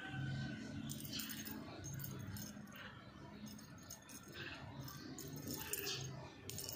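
Small metal jingle bell on a string toy jingling in short irregular bursts as a kitten bats and paws at it.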